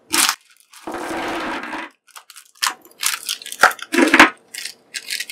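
A small plastic hardware bag crinkling and being torn open with about a second of steady ripping, then small metal connector cubes spilling out and clattering onto the desk in a run of irregular clinks, with more bag rustling.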